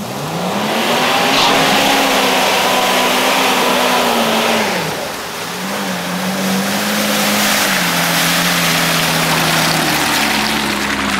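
GAZ-69 off-roader's engine revved hard under load in two long pulls, each held high for several seconds and then dropping off, with a broad hiss of wheels churning through mud.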